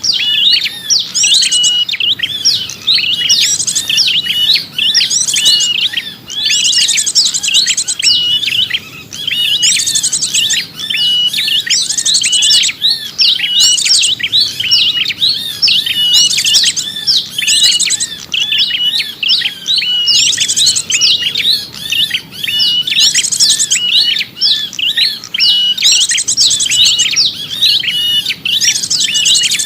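Small songbirds chirping and twittering without a break in a busy, repeating pattern of short notes and whistles, with short high trills every couple of seconds: a bird-luring call (suara pikat) for small birds.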